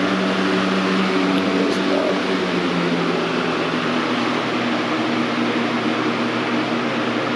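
Air King model 9723 box fan running steadily: an even rush of moving air with a low motor hum underneath.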